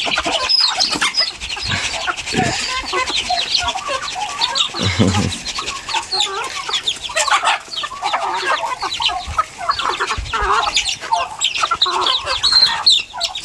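A flock of chickens clucking and calling all at once, many overlapping short calls with no pause.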